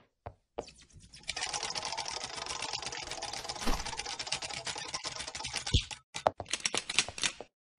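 Cartoon sound effect: a few lone clicks, then a fast, even clatter of clicks lasting about five seconds, breaking into a few separate bursts near the end.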